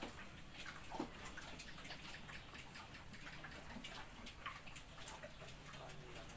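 Faint, scattered small clicks and ticks, with soft noises from piglets in the pen.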